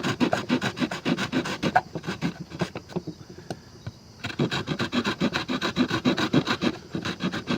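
Small multitool saw blade cutting into wood in quick back-and-forth strokes, pausing for about a second roughly three seconds in.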